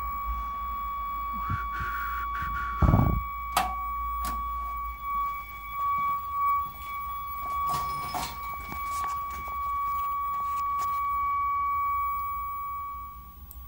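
Steady high-pitched test tone with a fainter overtone, from the audio tone of a B&K Precision 1251 NTSC pattern generator. A heavy thump comes about three seconds in, and the tone cuts off near the end.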